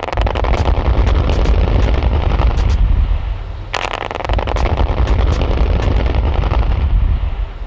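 Bulk earthworks rock blast: a loud, deep rumbling boom that sets in abruptly, swells again about four seconds in as a second wave of rumble, and dies down near the end.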